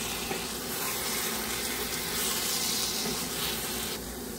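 Brinjal, potato and spinach sabzi sizzling in a pan while it is stirred with a wooden spatula: a steady hiss that drops off about four seconds in.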